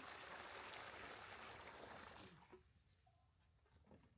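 Water running steadily, stopping after about two and a half seconds.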